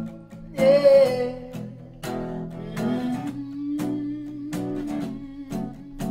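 Acoustic guitar strummed in a slow, even rhythm, with a man singing a short wordless note about a second in.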